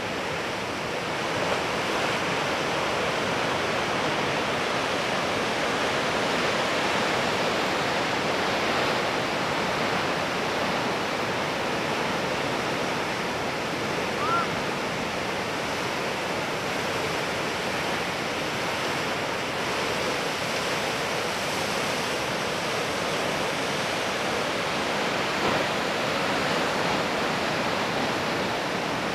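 Ocean surf breaking, a steady, even wash of white water, with one brief high chirp about halfway through.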